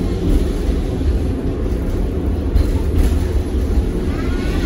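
Tatra KT4D articulated tram in motion: a steady, loud low rumble of wheels and running gear on the rails.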